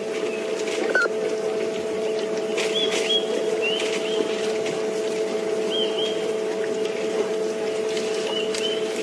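Elephants browsing on bush branches, with scattered snaps and rustles of twigs, while a bird gives short chirps, often in pairs, every second or two. A steady hum runs underneath.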